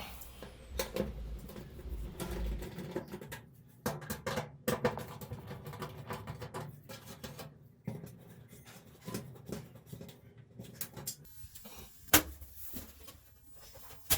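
Irregular clicks, taps and handling knocks of hands and tools working on a washing machine's back panel, with a brief low hum in the first two or three seconds and a sharper click near the end.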